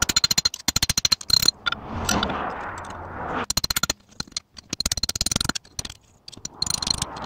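Hand hammer striking red-hot coil-spring steel on an anvil in rapid runs of blows with short pauses, with a louder rushing, scraping noise about two seconds in.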